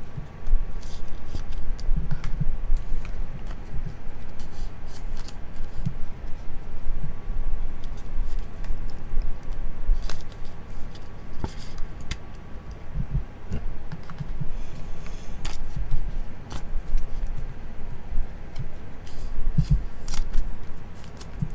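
Trading cards and clear rigid plastic toploaders being handled: irregular clicks, light plastic scrapes and rustles, with dull low thumps of hands against the desk.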